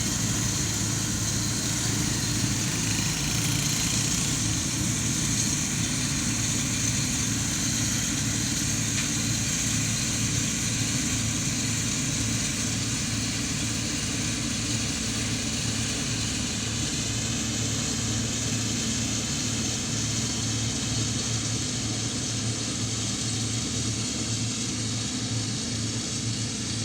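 Tractor engine running steadily, with a steady high hiss over it.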